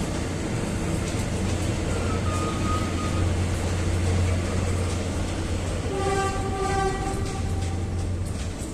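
PNR passenger train of INKA coaches, hauled by diesel-hydraulic locomotive INKA DHL 9002, rolling along the track with a steady low hum and rail noise. A horn sounds for about a second around six seconds in.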